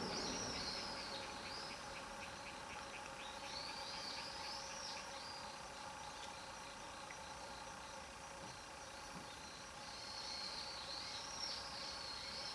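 A small bird singing high, arching chirpy phrases three times: near the start, around four seconds in, and near the end, over faint steady outdoor background.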